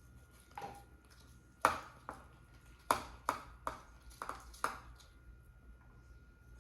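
A spatula knocking against the side of a mixing bowl while stirring slime: about eight sharp taps spread over three seconds.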